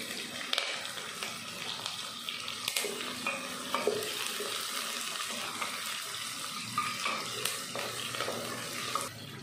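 Shallots and curry leaves sizzling in hot oil in a pot, stirred with a wooden spatula, with a few sharp clicks over the steady hiss.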